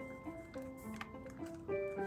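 Background music: a soft melody of held notes stepping from one pitch to the next.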